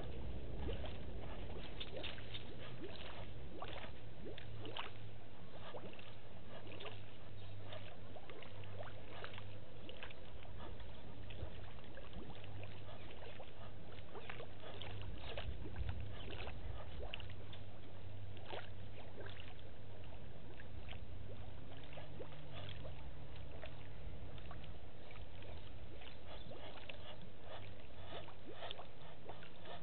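Steady outdoor ambience with a low hum and many short, faint clicks and ticks, and a faint low tone for a few seconds past the middle.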